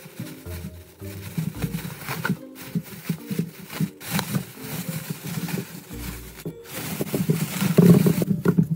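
Soft background music with sustained notes, over a string of short knocks and clicks from objects being handled, busiest and loudest near the end.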